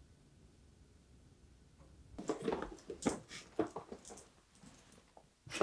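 Quiet room tone, then from about two seconds in a few seconds of irregular rustling and light knocks, as of objects being handled and rummaged through.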